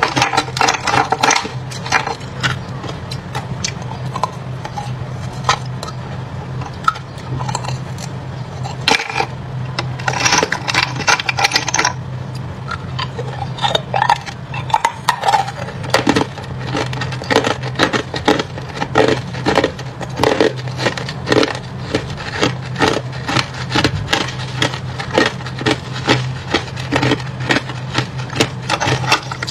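Hard clear ice being bitten and chewed, a long run of sharp cracks and crunches that comes thicker about halfway through, with chunks knocking in a plastic tray. A steady low hum runs underneath.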